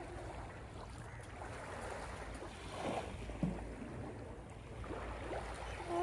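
Small waves washing onto a sandy beach, with a steady low wind rumble on the microphone and a brief low thud a little past halfway.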